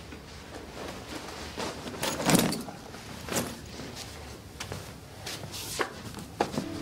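A handful of separate knocks and clatters of objects being handled, the loudest and heaviest about two and a half seconds in, with lighter ones about a second later and near the end.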